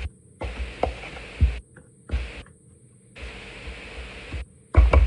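Soft knocks and handling thuds from hands working food at a kitchen counter, over an intermittent hiss. The loudest cluster of knocks comes near the end.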